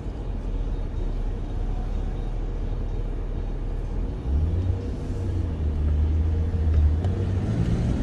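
Car engine and road noise as the car drives up a hill. About four seconds in the engine note strengthens and grows louder under the load of the climb.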